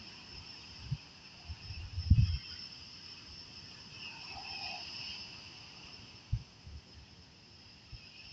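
Insects chirring steadily at two high pitches, with a few dull low thumps on the microphone, the loudest about two seconds in.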